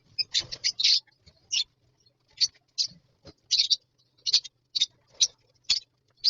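Lovebirds chirping: many short, shrill calls in quick, irregular succession.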